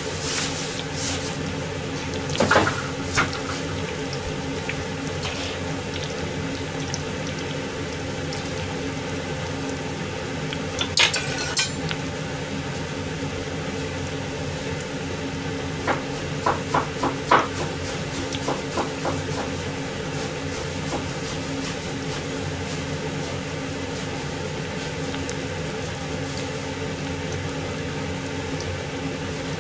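Dishes and metal utensils clinking and clattering in a few short clusters (about two seconds in, around eleven seconds, and several quick clinks near the middle) over a steady kitchen hum.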